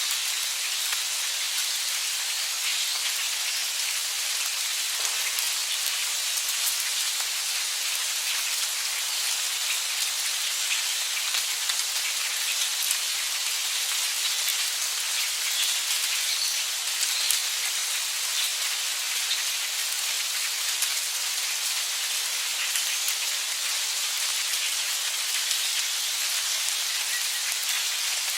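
Steady heavy rain: a constant high hiss thick with the small ticks of individual drops, with no thunder.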